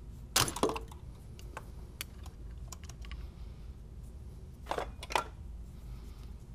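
Metal clicks and clacks of a pry bar levering at the transmission's shift-link cable ends, not yet popping free. There is a sharp cluster just under a second in, a few light ticks, and two more clacks about five seconds in.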